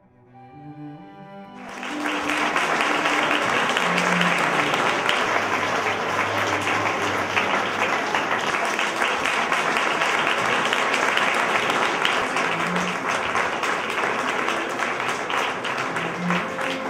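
Audience applauding, a dense, steady clapping that sets in about two seconds in, over background music with a few low notes. At the start, bowed-string music fades out just before the clapping.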